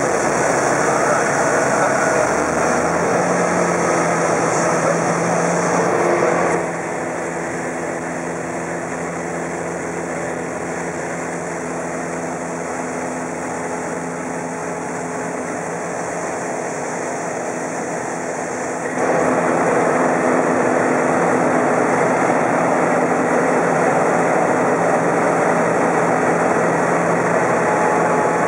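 Super Decathlon's four-cylinder Lycoming engine and propeller running steadily, heard inside the cockpit. The sound drops noticeably quieter about six seconds in and comes back up to full loudness about nineteen seconds in.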